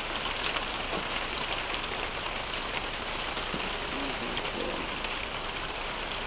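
Steady rain falling, an even hiss with many small drop ticks.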